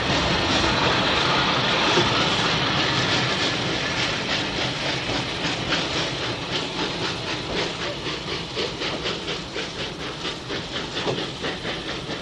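Railway train running: a hissing noise at first, then a steady rhythmic clatter of wheels that slowly gets quieter as it draws away.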